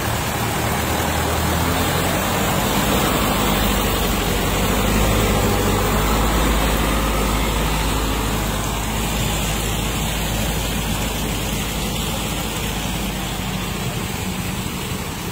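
A large diesel truck's engine runs with a low, steady drone as the truck creeps past close by, over a steady hiss. It is loudest about five seconds in, then slowly fades.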